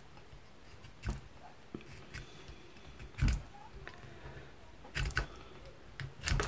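Small metal handheld pencil sharpener being turned on a black drawing pencil, its blade shaving the wood and lead in a handful of short, irregular scrapes and clicks; the loudest comes about three seconds in.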